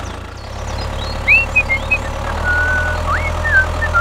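Steady low tractor engine drone, getting a little stronger about two seconds in, with several short high whistled chirps over it.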